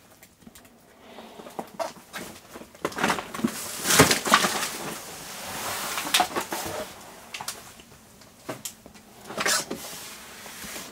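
Handling and moving-about noises in a debris-strewn room: scattered knocks and clicks with rustling, the loudest knock about four seconds in.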